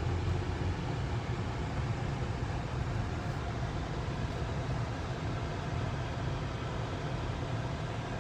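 Steady low rumble of a car driving slowly, road and engine noise heard from inside the cabin.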